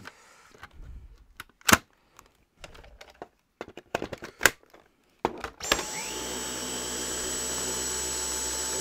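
A few sharp clicks and knocks as the Dyson V10 Animal cordless stick vacuum is handled. About two-thirds of the way through, its motor switches on, rising quickly to a steady high-pitched whine that keeps running.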